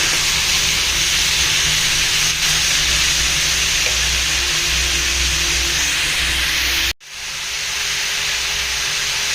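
Pork pieces sizzling steadily as they fry in hot mustard oil in a karahi, the meat's juices spitting in the oil. The sizzle cuts out abruptly about seven seconds in and comes straight back.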